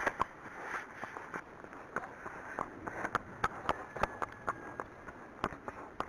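Hooves of an Arabian horse walking on a wet tarmac lane: irregular sharp clip-clops, a few a second.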